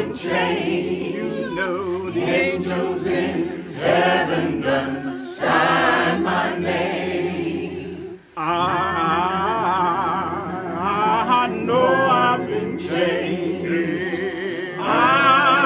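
A cappella choir of mixed voices singing a spiritual, with a short break in the sound about eight seconds in.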